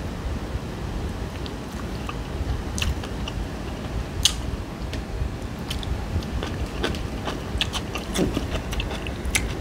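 Close-miked chewing of crispy fried fish, with scattered sharp clicks and crackles of the crust and mouth over a low steady room hum.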